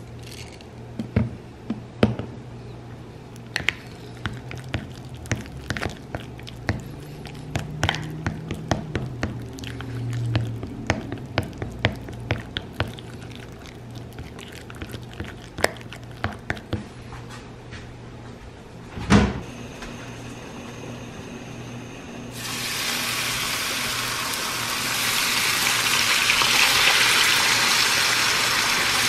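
A wooden spoon mashing and stirring avocado in a glass dish: soft squishes and many small clicks and scrapes. After a single thump about two-thirds through, bacon strips sizzle in a frying pan, a steady hiss that grows louder.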